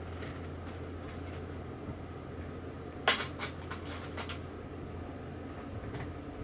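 Light clicks and taps of small fishing-reel parts being handled and fitted. One sharp click comes about three seconds in, followed by a quick run of smaller ones, over a steady low hum.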